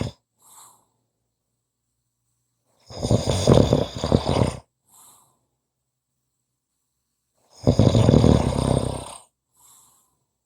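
Snoring: two long snores about four and a half seconds apart, each followed by a short, faint breath.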